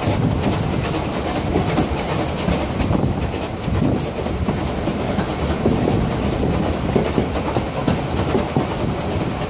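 Running noise of a metre-gauge heritage steam train, heard from an open coach window: a steady rumble of wheels on the track with irregular clacks over the rail joints.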